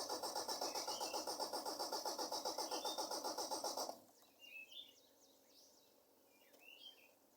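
Carbureted engine being cranked by its starter, a fast even chug of about seven pulses a second that does not catch, then stops abruptly about four seconds in, leaving a few bird chirps. It is a hard start, put down to a carburetor that needs cleaning.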